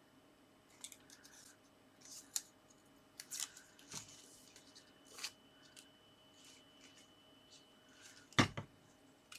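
Cardstock pieces being handled on a craft desk: scattered short, crisp paper rustles and clicks, with a sharper knock about eight seconds in, over a faint steady hum.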